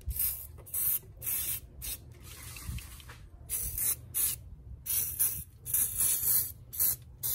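Tire shine dressing sprayed onto engine-bay plastics in a dozen or so short hissing bursts, a few held a little longer.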